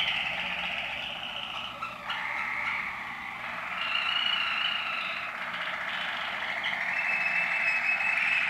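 Waterslager canary song: a continuous run of rolling, water-like trills and tours that switches to a new phrase and pitch every second or two.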